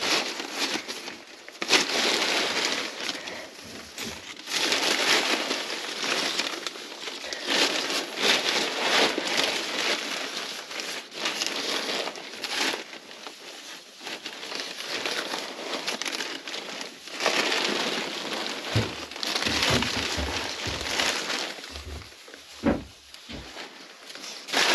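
Oak shavings rustling and pattering as they are tipped out of a cloth bag and scattered by hand into a wet bilge, the bag crinkling in waves. A few soft knocks near the end.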